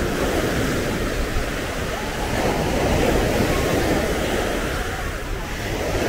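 Sea waves breaking and washing up on a beach, a steady rush of surf that swells a little about halfway through.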